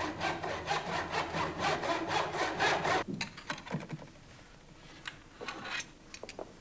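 Saw cutting wood in rhythmic strokes, about four a second, over a low steady hum; it cuts off suddenly about three seconds in. After that come a few faint clinks of a serving spoon against metal dishes.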